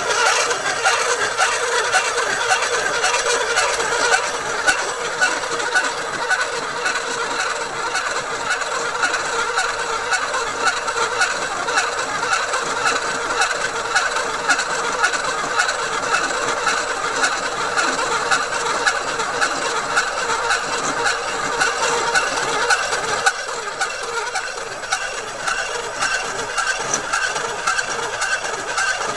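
Home-built diamond-tipped glass-cutting machine running steadily, its electric motor and belt-driven pulleys turning the cutter around a glass telescope mirror blank. It makes a continuous dense rattling, grinding noise.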